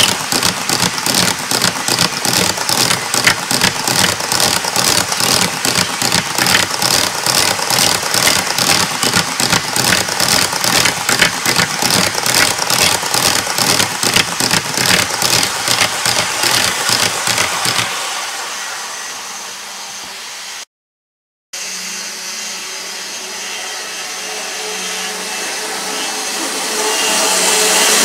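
HO scale double-stack intermodal cars rolling past close by at speed, their wheels clicking rapidly and evenly over the rail joints. About two-thirds through the sound fades and cuts out briefly, then a steady motor hum grows louder as the model CSX diesel locomotives approach.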